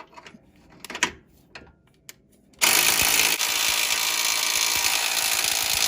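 A few light clicks of parts and tools being handled, then a handheld power tool starts about two and a half seconds in and runs steadily and loudly, driving on the last track bar bolt's nut.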